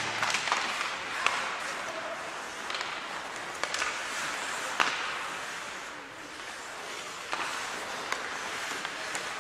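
Ice hockey play in an echoing rink: skate blades scraping the ice under a steady hiss, punctuated by sharp clacks of sticks and puck, the loudest about five seconds in. Arena music cuts off right at the start.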